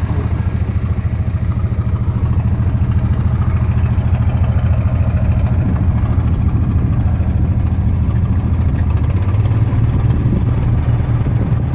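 Massey Ferguson MF65 tractor's Continental G176 four-cylinder gas engine idling steadily with a rapid low pulsing beat. The owner says it runs on only two cylinders because the other two plugs are oil-fouled.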